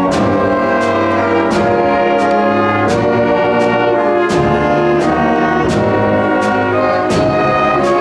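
High school symphonic band playing live: tubas, euphonium, clarinets and other winds holding full, sustained chords over a low bass line, with a steady beat struck about every three quarters of a second.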